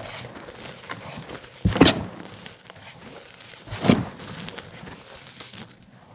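Gym chalk powder being crushed and pressed by hand: a steady crumbly crunching, with two heavier squashing thuds, about two seconds in and again about two seconds later.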